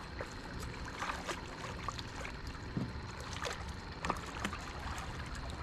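Water splashing and dripping at the side of a boat as a small hooked catfish thrashes at the surface and is lifted out of the river, with short irregular splashes over a steady rush of flowing water.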